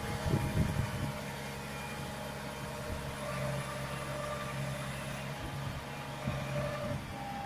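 Farm tractor engine running steadily under load as it hauls a narrowboat out of the water on a slipway, with a few low thumps in the first second.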